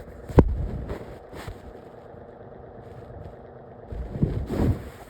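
Lasko Windstorm 18-inch pedestal fan running on its lowest speed with a steady vibrating hum: an abnormal vibration noise on speeds 1 and 2, which the owner wonders may come from the motor. A sharp knock sounds about half a second in, and a cluster of louder thumps comes near the end.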